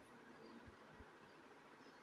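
Near silence: faint background hiss, with two soft low thumps close together a little under a second in.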